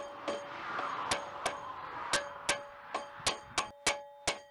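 Small hammer tapping on the crankshaft main bearing and its race seated in the Ural motorcycle crankcase: about ten sharp metallic taps, each ringing briefly, coming faster as they go, while the part sits tight. A steady hiss fades out in the first two seconds.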